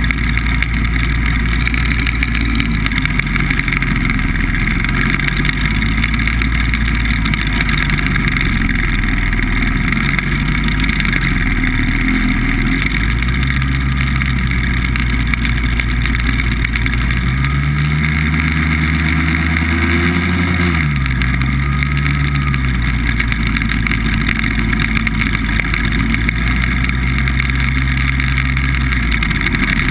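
BBV2+2 hovercraft running under way, its engine and fans loud and continuous. About two-thirds of the way through, the engine note climbs for a few seconds, then falls back abruptly.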